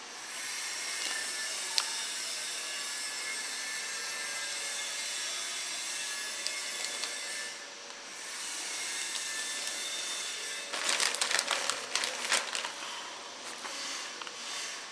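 Thin plastic wrapping rustling and crinkling as it is handled, over a steady hiss; the crinkling gets louder and more crackly about eleven seconds in.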